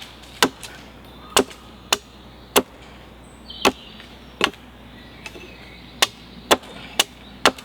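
Chopping blows into green wood: about ten sharp, separate strikes at an uneven pace, cutting branches down to length for tent stakes.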